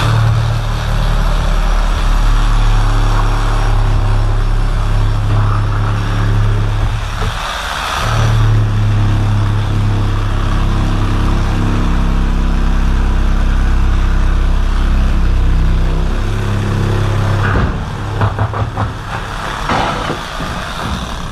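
A machine motor running with a loud, steady low hum. It cuts out briefly about seven seconds in, shifts pitch around twelve seconds, and stops near the end, followed by a quick run of sharp knocks.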